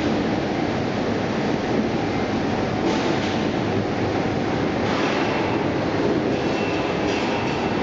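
Steady mechanical din of a potato chip production line running: the motors, rollers and conveyor belts of the potato washing and peeling machinery.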